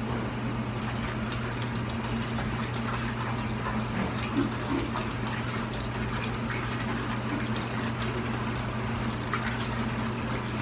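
Liquid being poured steadily into a pot, over a steady low electrical hum.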